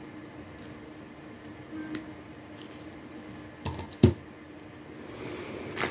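Jewellery pliers and unakite chip beads being handled as a crimp is squeezed flat: a few light clicks, then a single sharp knock just after four seconds in.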